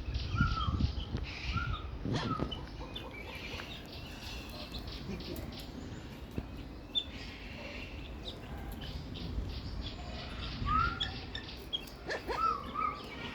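Several birds chirping and twittering, with a few short rising whistled calls about a second in, around two seconds, around eleven seconds and twice near the end.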